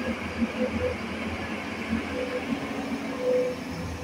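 Tata Hitachi hydraulic excavator working: a steady diesel rumble with short whining tones coming and going.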